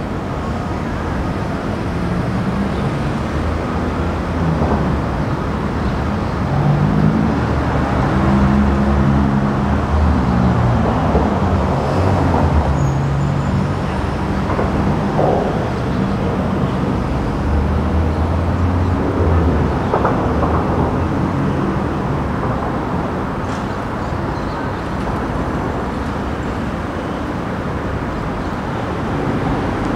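Steady low rumble of motor traffic, with a passing vehicle engine droning louder for several seconds in the middle.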